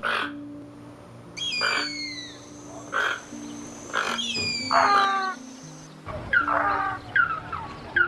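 A medley of bird calls over a soft, sustained music bed: a few loud descending cries in the first half, then a quick series of short falling chirps near the end.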